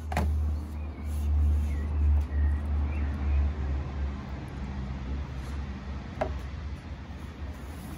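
A paintbrush being worked through wood preservative onto a pine board, under a steady low rumble. Two light knocks, one right at the start and one about six seconds in.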